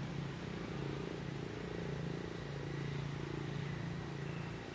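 Steady low hum of a motor running, with no change in pitch or level.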